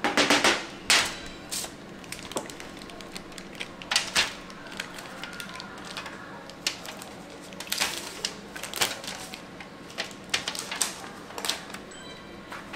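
Aluminium foil pan crinkling as it is handled, then a plastic tofu package being slit and peeled open: irregular sharp crinkles and clicks, loudest in the first second.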